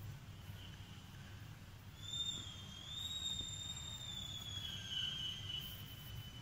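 A faint, high whistle-like tone that starts about two seconds in, wavers slightly in pitch and fades after about four seconds, over a low steady hum.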